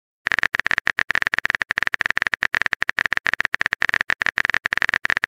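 Phone-keyboard typing sound effect: a rapid, even run of key-tap clicks as a text message is typed, starting about a quarter second in.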